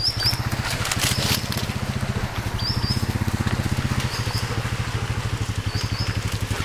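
Quad bike (ATV) engine running at a low, steady speed with a fast, even pulse as the rig rolls along a rough trail. A short high chirp recurs a few times over it.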